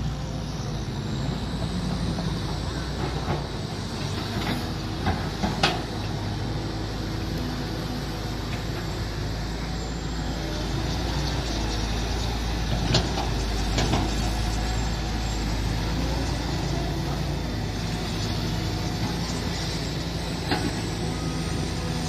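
Mini excavator engine running steadily, with a handful of sharp knocks from the machine's work about five and a half, thirteen and twenty seconds in.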